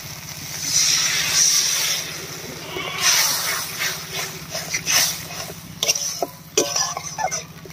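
Water poured onto hot spice paste in a metal kadai, hissing and sizzling loudly for about a second. Then a metal spatula scrapes and clicks against the pan as the wet masala is stirred, in quick uneven strokes.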